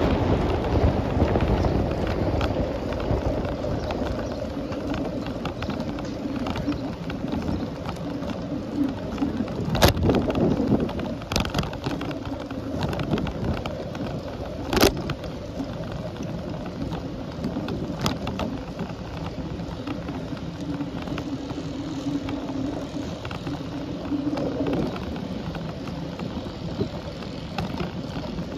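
Riding a bicycle: steady wind on the microphone with tyre and road noise. A few sharp knocks cut through, the loudest about ten and fifteen seconds in.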